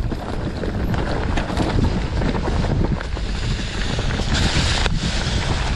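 Wind buffeting the microphone over the steady rumble and rattle of a mountain bike riding a rough singletrack trail. A brief louder hiss comes about four and a half seconds in.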